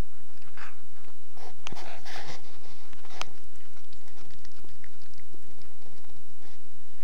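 A pet chewing and biting into a fresh chekhon (sabrefish), with irregular wet crunches and clicks, busiest a couple of seconds in, and one sharp crunch about three seconds in.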